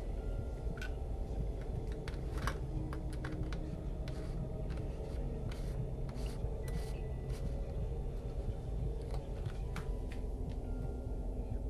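Scattered light clicks and taps from a plastic milk bottle, its cap and a drinking glass being handled on a kitchen counter, over a steady low hum.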